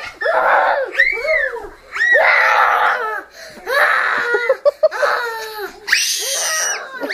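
Children shrieking during rough play-wrestling: a run of about six high-pitched screams, each about a second long, rising and falling in pitch.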